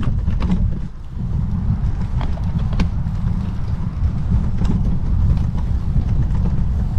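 Wind buffeting the microphone of a bike-mounted action camera while riding, a dense low rumble throughout, with a few light clicks.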